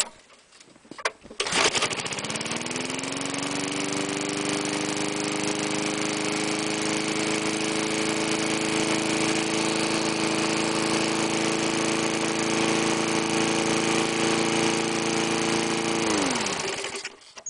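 Push-mower engine (3.5 with automatic choke) pull-started: it catches on the first pull about a second and a half in and rises to a steady run. Near the end it is shut off and winds down, its pitch falling as it stops.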